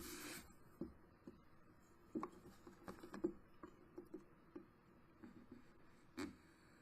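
Faint, scattered small taps and rustles of paper and hand tools being handled on a craft table, about eight light knocks in all, the loudest about six seconds in.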